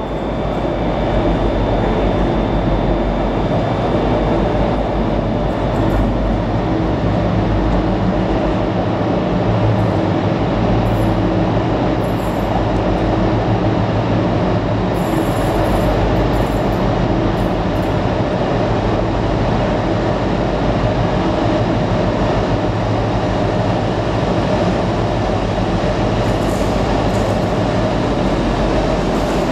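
Colas Rail Freight Class 60 diesel locomotive working slowly into the station at the head of a loaded timber train, its eight-cylinder Mirrlees diesel engine a steady loud drone, with a few brief high squeals from the wheels.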